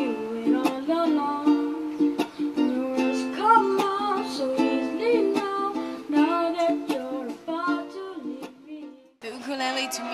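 Solo ukulele played by a boy through stage microphones: a plucked melody over strummed chords. About nine seconds in it cuts out briefly, and a different ukulele piece begins.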